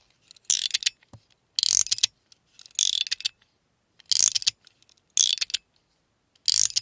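Fidget slider slid back and forth, snapping through its detents: six short clusters of sharp clicks and pops, about one a second.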